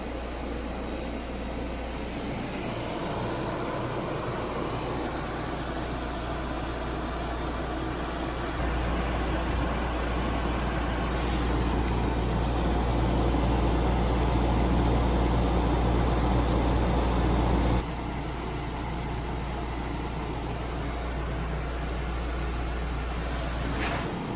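Gaya KY-8554U industrial dehumidifier running steadily after its burst copper refrigerant line was welded and recharged, with a faint steady high whine. About nine seconds in the running noise steps up louder, and near eighteen seconds it drops back suddenly.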